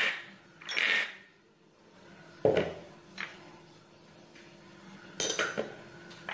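Kitchen utensils clinking and knocking against a stainless steel pot as ground spices are added to raw mutton: a short rustle about a second in, a heavier knock about two and a half seconds in, and a quick run of clinks near the end.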